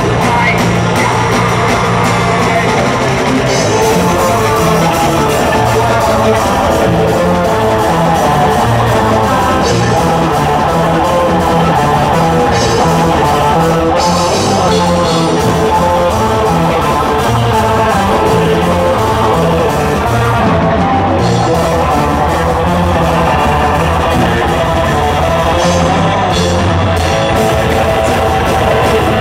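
Live metal band playing loudly: electric guitar and bass guitar riffing on changing low notes over a drum kit, with a singer's vocals at times.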